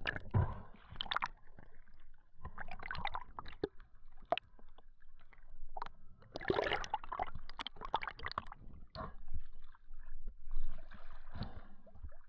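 Water sloshing and gurgling in irregular bursts.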